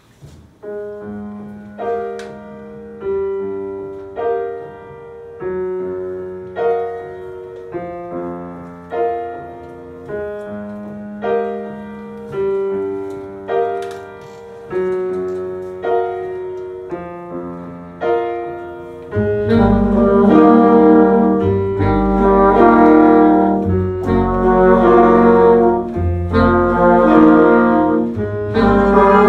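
Big band rehearsing a slow piece. A piano plays the opening alone, a struck note or chord about every second, each fading away. About nineteen seconds in, the saxophones, trumpets, trombones and bass come in together, much louder.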